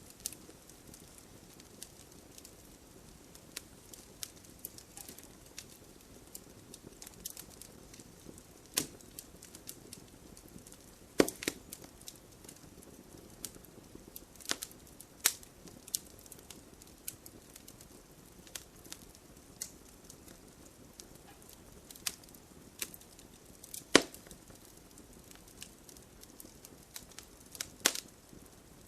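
Wood campfire crackling: scattered sharp pops and snaps over a soft, steady low rush of burning, with the loudest snaps about eleven and twenty-four seconds in.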